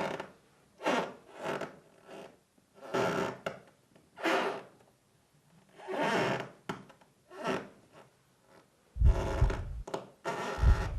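A series of short rasping noises, roughly one a second and uneven in spacing. Near the end come louder rasps with a deep low rumble under them.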